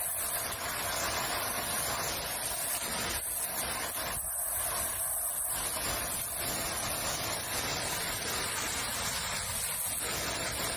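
Steady rushing storm noise of wind and rain, with no clear pitch and no distinct events.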